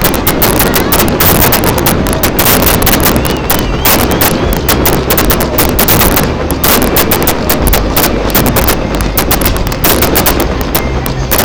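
Fireworks and firecrackers going off, a loud, unbroken run of rapid bangs and crackles.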